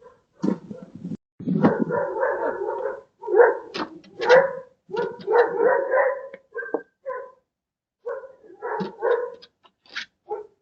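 A dog barking and vocalizing in a run of short and drawn-out calls, with brief pauses between them.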